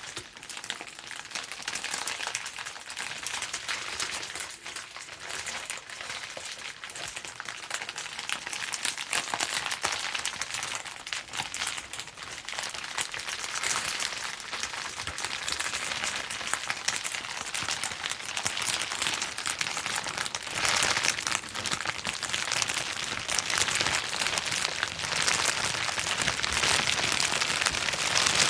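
Bubble wrap being popped and crinkled, a dense, continuous run of small sharp pops and plastic crackling that grows louder and busier in the second half.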